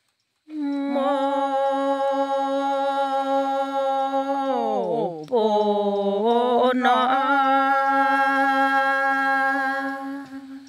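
A single voice chanting a Karen tha (sung poem), holding one long steady note that dips down in pitch about halfway through and climbs back to the same note.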